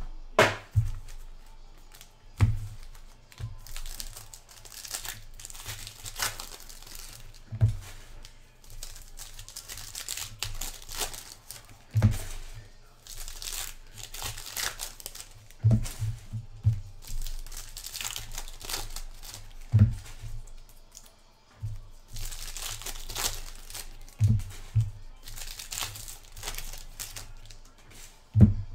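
Foil trading-card pack wrappers crinkling and tearing as packs are ripped open one after another, with a few dull knocks on the table between them.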